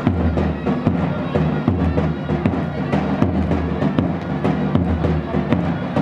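Davul and zurna playing a halay dance tune: repeated strokes on the big double-headed drum under a loud, reedy melody on the wind instrument.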